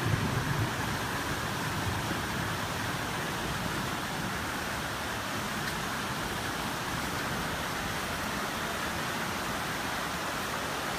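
Steady rushing of fast-flowing floodwater in a swollen creek, an even, unbroken wash of noise.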